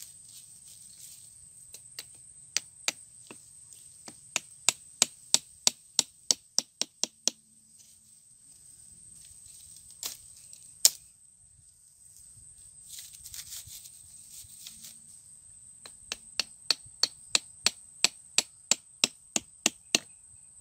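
Machete knocking a cut bamboo stake into the ground: quick, sharp knocks about three a second, in two long runs, with two single knocks in the pause between them.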